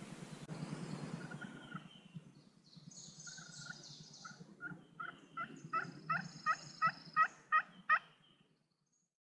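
A series of about ten turkey yelps, evenly spaced at roughly three a second and growing louder, the hen-style yelping used to call a gobbler in.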